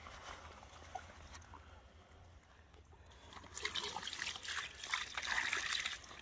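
Water poured from a bucket over a large common carp lying in a padded unhooking cradle, splashing and trickling onto the fish and the wet mat to wet it down. The pouring starts a little over halfway in and is the loudest part.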